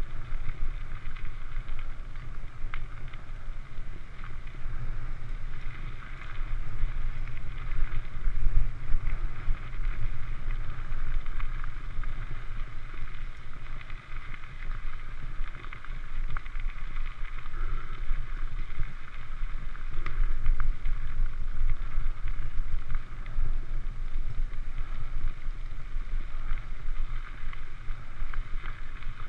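Wind buffeting a GoPro's microphone while a mountain bike rolls fast over a gravel track: a steady low rumble with the hiss of tyres on gravel on top.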